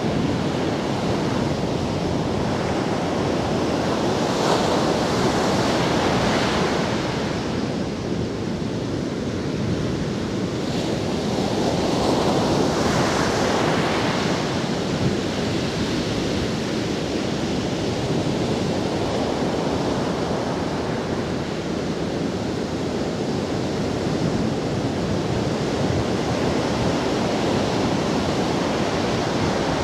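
Sea surf breaking and washing up a sandy beach as a continuous rush of water, with two louder surges of breaking waves, about five seconds in and again around twelve seconds in.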